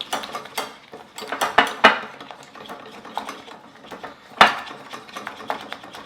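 Kitchen utensils and cookware clinking and knocking together in an irregular run of sharp clinks, the loudest about two seconds in and again a little past the middle.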